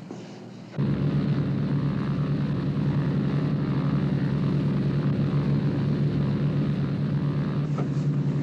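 Propeller airliner's engines droning steadily in flight, cutting in abruptly about a second in.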